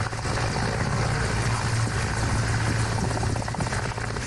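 Military helicopter hovering low over the ground: its rotor and turbine engines run steadily with a low hum.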